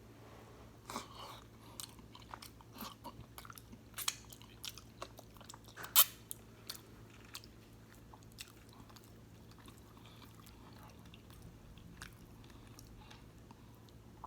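Close-miked chewing of egusi soup and fufu: wet mouth clicks and smacks, busiest in the first half, with one sharp click about six seconds in the loudest, then quieter chewing.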